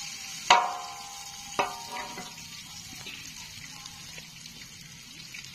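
Chapli kababs sizzling in shallow oil in a large iron karahi. About half a second in and again a second later, the metal spatula clanks against the pan, and each clank rings briefly.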